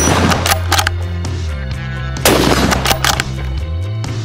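Two shots from a Ruger American Ranch bolt-action rifle in 5.56 NATO, one at the start and one a little over two seconds later, over background music with steady bass notes.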